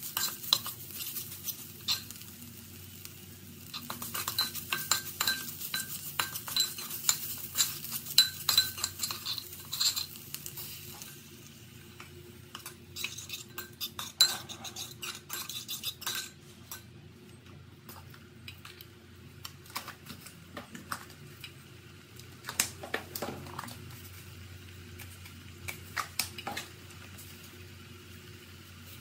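Metal spoon scraping and clicking against a pot while stirring curry paste frying with a sizzle. About eleven seconds in the sizzle dies away, and the stirring goes on as scattered spoon clicks and scrapes in a creamy coconut-milk sauce.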